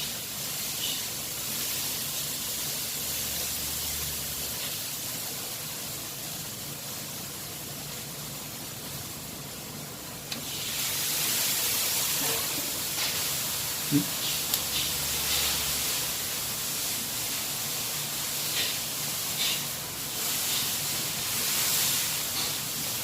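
Steady background hiss, a little louder from about ten seconds in, with a few faint light clicks and taps.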